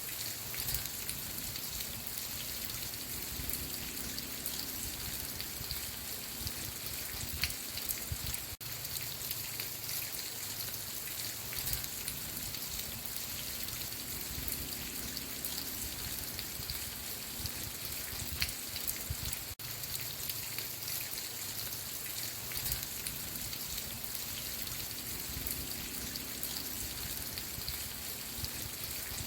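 Steady rain falling, with many separate drops hitting a surface. The sound dips out for an instant twice.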